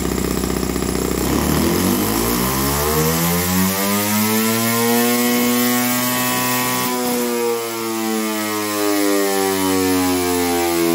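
Saito FA-40a 6.5 cc four-stroke model engine accelerating the heavy flywheel of its dyno. It runs low and steady for about a second, then its pitch climbs steadily for several seconds, peaks about halfway through and slowly falls away.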